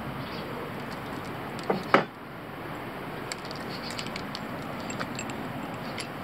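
Two sharp knocks close together about two seconds in, then light ticks and clicks as a mounting bolt and washer are handled, over a steady background hiss.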